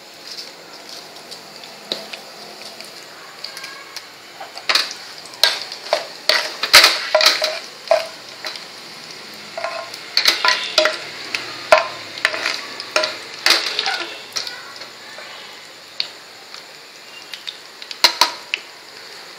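Cumin seeds and dried red chillies sizzling in hot oil for a tadka (tempering), with a steady hiss. A spoon stirs and clicks against the pan in several short spells, mostly in the middle and again near the end.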